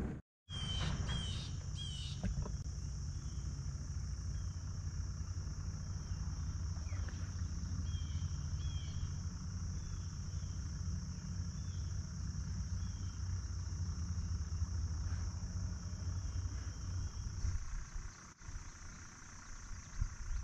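Steady chorus of insects singing, a constant high drone, over a low steady rumble that eases off near the end. A few faint short high chirps are heard now and then.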